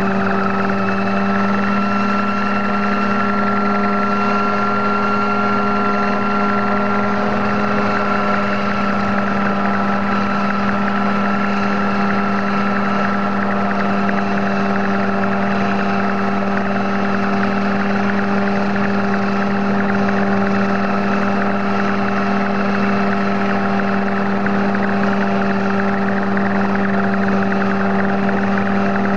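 Homemade helicopter's engine and rotor running steadily on the ground: a constant drone with a strong low hum and a higher whine that rises slightly in the first few seconds, then holds steady.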